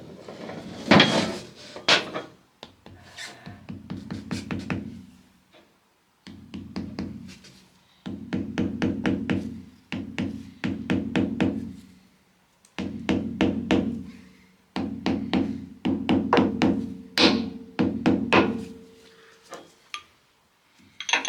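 A large hammer tapping a new oil seal into the gearbox housing of a Votex topper: quick runs of light blows, several a second, in bursts with short pauses. The struck metal rings with a steady tone during each run.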